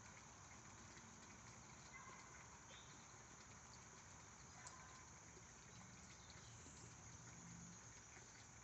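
Near silence: faint outdoor ambience, a steady low hiss with a few soft ticks.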